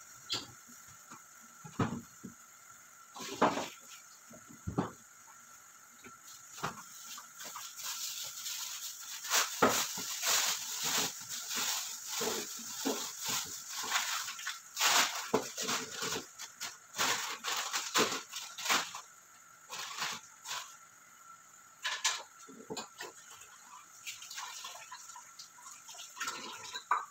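Chopped garlic frying in oil in a small pot, sizzling with irregular crackles and pops that come thickest through the middle stretch and thin out toward the end.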